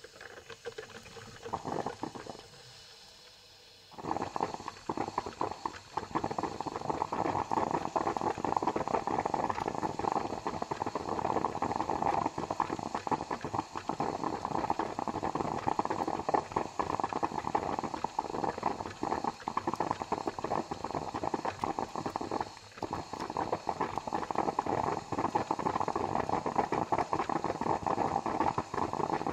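Coffee maker brewing, its water boiling and gurgling through the machine with rapid sputtering pops. After a short burst of gurgling, it settles into steady, dense bubbling about four seconds in.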